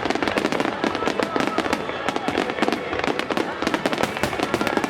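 Starmine fireworks barrage: shells bursting in quick, unbroken succession, many bangs a second over a continuous crackle.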